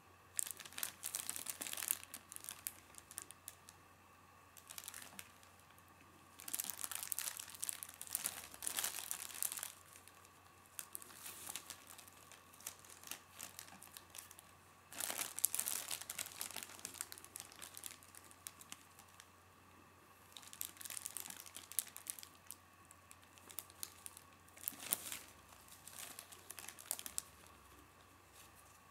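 Thin clear plastic bag crinkling in repeated bursts as it is handled and stretched while a pen is pressed into the film, with short quiet pauses between.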